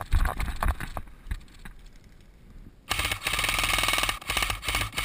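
Airsoft gun firing on full auto: a sudden long burst of rapid, evenly spaced shots about three seconds in, then shorter bursts. Before it come a few irregular thuds, like running footsteps.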